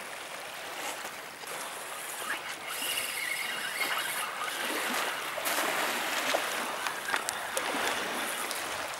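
Small waves washing steadily on a pebble shore, with a few faint clicks.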